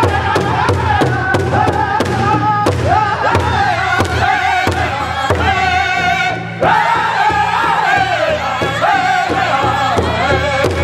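Powwow drum group performing: several drummers strike one large drum with sticks in a steady beat of about three strokes a second while the men sing in high voices and women standing behind them sing along.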